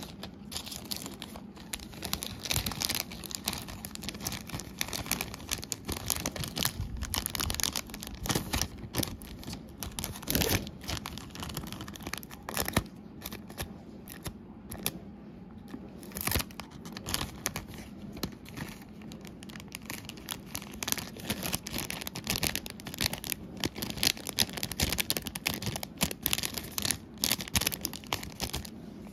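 Clear self-sealing cellophane bag crinkling and rustling as an earring card is handled into it, with irregular crackles throughout.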